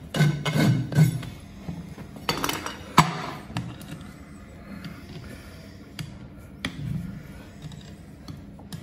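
A farrier's rasp scraping over a horse's hoof and shoe in three quick strokes, then sharp metal clicks and scrapes as clinching tongs turn the nail ends over on a cast-covered hoof.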